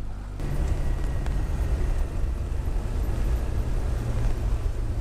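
Outboard motor on a small fishing boat running at speed, under a steady rush of wind and water; it gets louder and rougher about half a second in.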